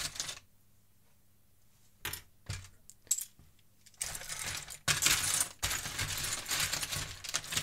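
Loose plastic Lego pieces and small toy figures clattering as hands rummage through them in a plastic tub. A few scattered clicks, then a continuous rattle from about four seconds in.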